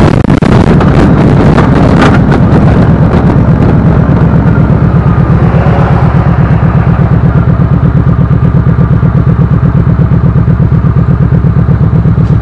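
Kawasaki Vulcan 1700 Vaquero's V-twin engine running as the motorcycle rolls off the road and slows, with wind rush on the microphone. About five seconds in it settles into an idle with an even pulsing beat.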